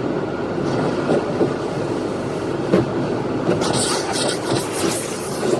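Automatic car wash working over the car, heard from inside it: a steady rumbling wash of water and machinery, with a brief louder hiss a little after halfway.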